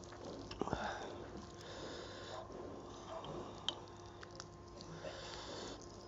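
Sniffling and audible breathing of a person eating very hot chilli food, with a few sharp clicks of fingers against a metal plate as rice and curry are mixed by hand.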